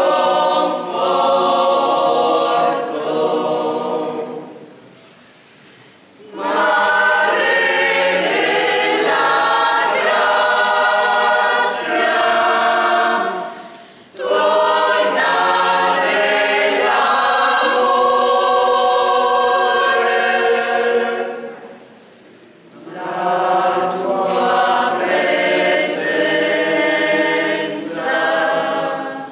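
Mixed choir of women and men singing a cappella, in long phrases broken by three short pauses where the sound dies away.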